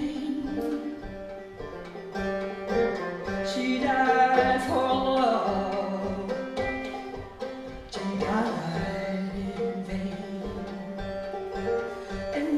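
A woman singing with her own banjo accompaniment, the banjo's picked notes running steadily under her voice.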